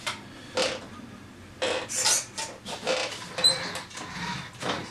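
Plastic clicks, creaks and scraping as the Traxxas Slash 1/16 RC truck is handled and adjusted on a desktop, in irregular short bursts, with one short high electronic beep about three and a half seconds in.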